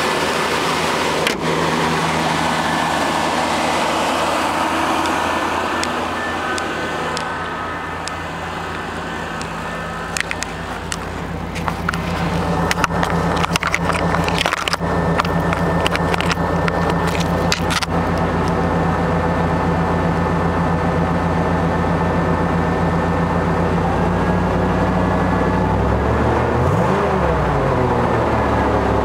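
Chevrolet 305 small-block V8 in a 1988 Silverado pickup, idling steadily shortly after a cold start in freezing weather. Scattered clicks sound midway through. Near the end there is one short throttle blip that rises and falls.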